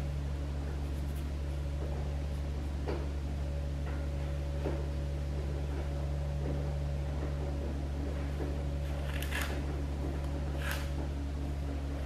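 A steady low hum, with a few brief scratchy rustles as a plastic comb and fingers work through dry, brittle natural hair.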